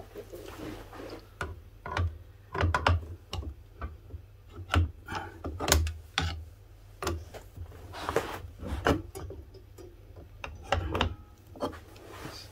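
Irregular metallic clicks and clinks of pliers and small drum-brake parts as the brake shoe fittings are worked by hand.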